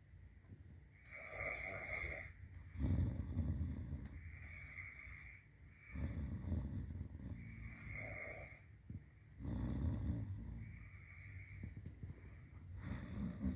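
Sleeping people snoring: a low, rattling snore on each in-breath, alternating with a higher, airy out-breath, about once every three and a half seconds.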